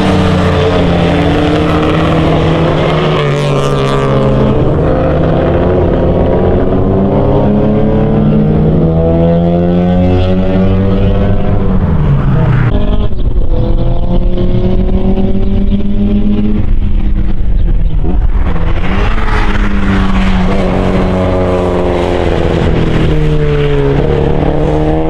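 Classic Mini race cars' BMC A-series four-cylinder engines running hard through a hairpin. The engine note rises and falls repeatedly as the cars lift off, change gear and accelerate away, with one sharp drop in pitch about halfway through.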